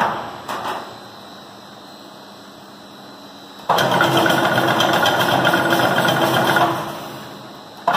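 Chain link fence machine's electric motor starting suddenly a little before halfway, running steadily with a hum for about three seconds, then winding down. A couple of short knocks near the start.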